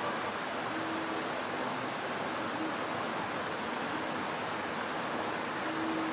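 Steady rush of stream water over rocks, with a continuous high insect-like whine and a few slow, held electric-guitar notes over it.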